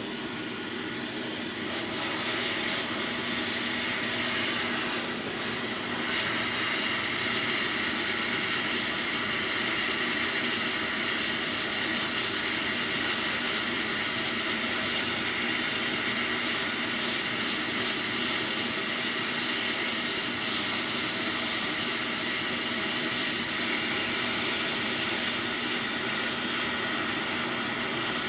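Quick 861D+ hot air rework station's handpiece blowing a steady stream of hot air with a constant fan hum, used to desolder a small component from a circuit board.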